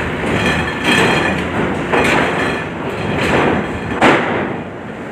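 Steel ferry ramp and linkspan clanking and banging under vehicle traffic: a heavy metallic knock about once a second, the sharpest about four seconds in, over a steady rumble of truck engines.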